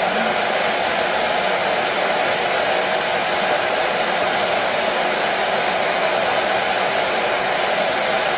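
Washing machine running, a steady, even whirring noise with no change in pitch or level.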